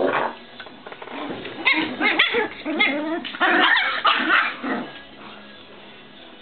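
Puppies yipping and barking in a quick run of short, high calls while they play-fight, lasting about three seconds and dying away near the end.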